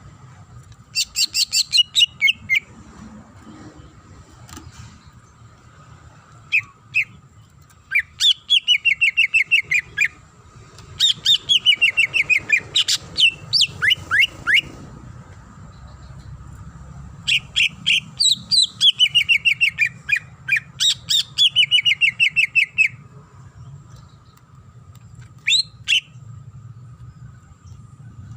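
Green leafbird (cucak ijo) singing in about five bursts of rapid chirping notes, each run falling in pitch, with short pauses between phrases.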